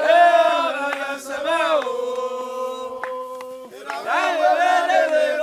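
Chanted singing in long, drawn-out held notes, the pitch sliding up about four seconds in.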